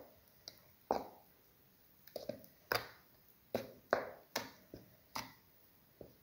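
A spoon stirring thick, wet batter in a bowl: irregular clacks and knocks of the spoon against the bowl with wet squelches, about a dozen strokes, as sugar is mixed into the banana and flour batter.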